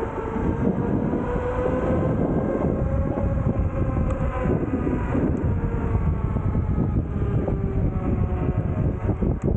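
Electric scooter ridden at speed: the motor's steady whine, drifting slightly up and back down in pitch, over heavy wind buffeting and tyre rumble.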